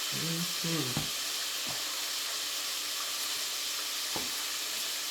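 Chicken strips frying in hot grease: a steady sizzle, with a few light clicks.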